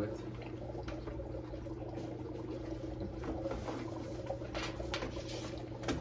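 Light rustles and small clicks of the Fluval 307 canister filter's packaging and parts being handled as it is unboxed, over a steady low hum.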